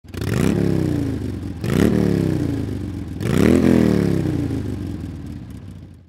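Motorcycle engine revved three times. Each throttle blip shoots up in pitch and then winds slowly back down, and the last one fades away near the end.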